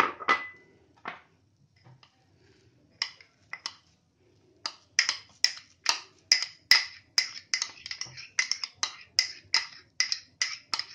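Steel spoon scraping and tapping against the inside of a small metal cup to knock crumbled paneer out: a few scattered clinks, then a quick run of short ringing taps, about three a second, from about halfway through.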